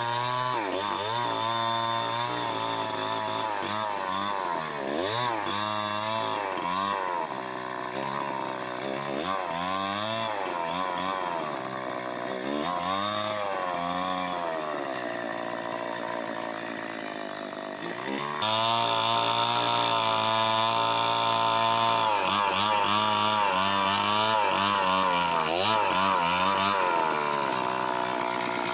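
Two-stroke chainsaw running, its engine pitch revving up and dropping back over and over. About two-thirds of the way through it gets louder and holds a higher, steadier pitch.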